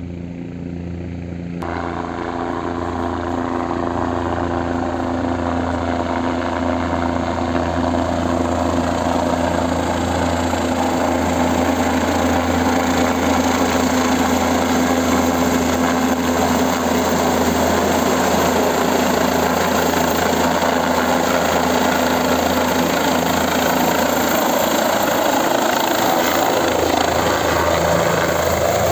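Helicopter rotor and engine coming in sharply about two seconds in, then growing louder over the next several seconds as it approaches and descends to land, before holding steady and loud.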